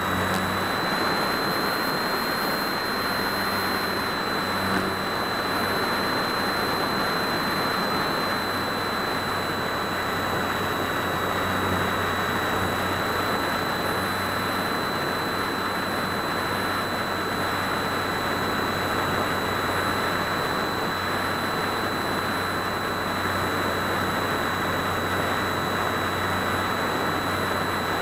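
Steady rushing airflow over a wing-mounted camera on an electric RC glider in flight, with a thin, steady high-pitched whine running under it.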